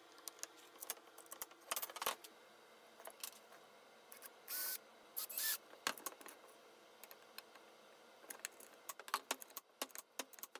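Small metal clicks and clinks of a hand screwdriver driving screws into a metal draw latch on a wooden board, and of the latch hardware being handled. Two short scraping sounds come a little under halfway through, and the clicks come thicker near the end.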